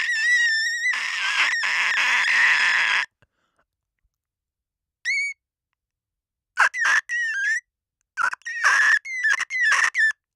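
Clean glass squeaking as it is rubbed: one long squeak lasting about three seconds, a short one after a pause, then a run of quick squeaks in the second half.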